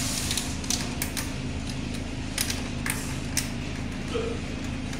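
Sharp, irregular plastic clicks and taps as wire connectors are handled at a split air conditioner's indoor-unit control board, over a steady low hum.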